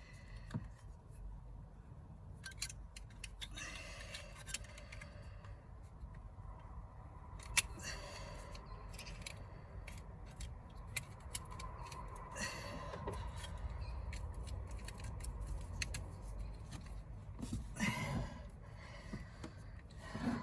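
Hands and a small metal hook tool working at the spark plug HT leads in a car engine bay: scattered light metallic clicks, scrapes and rustles, with one sharp click about seven and a half seconds in.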